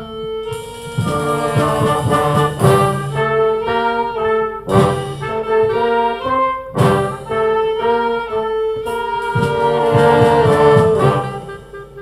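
A brass band playing a tune, with held brass chords over a moving bass line and sharp accented hits about every two seconds. The full band drops away near the end.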